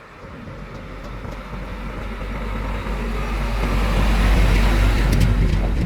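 Heavy diesel engine running with a deep rumble, growing steadily louder.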